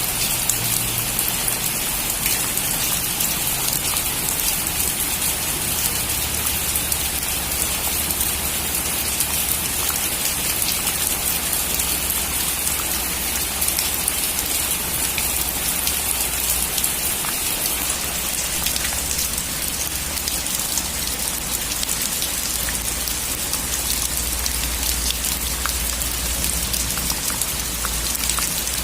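Heavy rain falling steadily on a metal roof: a dense, even hiss made of countless fine drop ticks, over a low rumble that grows a little stronger in the second half.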